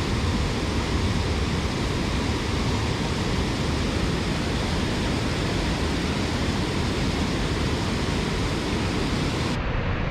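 Steady rushing of a waterfall and the fast water below it. Near the end the highest part of the hiss drops away suddenly.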